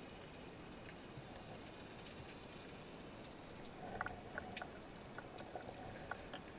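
Faint underwater ambience picked up by a camera in its housing: a steady hiss with scattered sharp clicks and crackles. From about four seconds in the clicks come thicker and a faint hum joins them.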